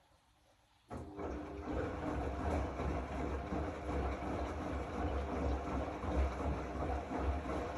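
Zanussi AquaCycle 500 FA 623 washing machine starting up suddenly about a second in, then running with a continuous, uneven low rumble.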